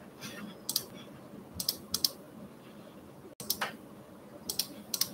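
Computer keyboard typing off camera: short clusters of sharp keystroke clicks with pauses between them.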